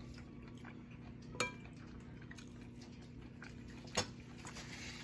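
A metal spoon clinking against a ceramic plate and bowl while scooping food, twice: a short ringing clink about a second and a half in and another at four seconds.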